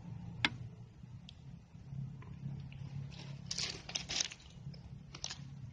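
Handling noises from a katana being readied: a sharp click about half a second in, then several short crunching, scraping noises in the middle and one near the end, over a steady low hum.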